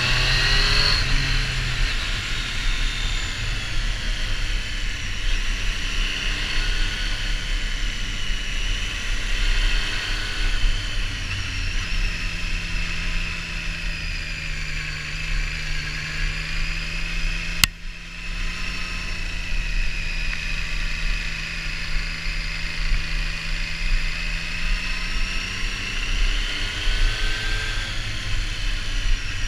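Triumph Street Triple R's inline three-cylinder engine running under way, its pitch rising and falling as the throttle is opened and closed, over a steady rush of wind. There is a single sharp click about two-thirds of the way through.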